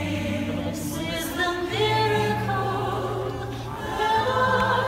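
Show soundtrack music with a choir singing long held notes over a steady low accompaniment.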